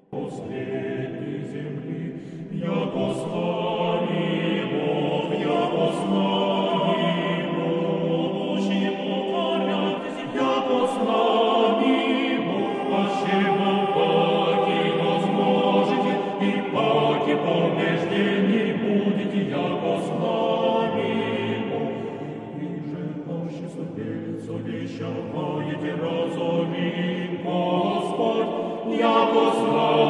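Choral music: a choir singing long, sustained chords that start suddenly at the beginning, with a brief quieter stretch a little past the middle.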